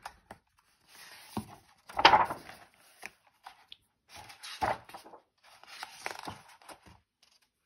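Pages of a thick-papered picture book being turned and smoothed flat by hand: several papery swishes and rustles, the loudest about two seconds in.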